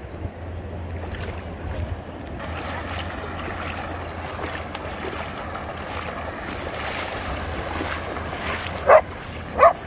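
Dogs running and splashing through shallow seawater, with surf and a low wind rumble on the microphone; the splashing noise thickens a few seconds in. Near the end a dog barks twice, loudly, less than a second apart.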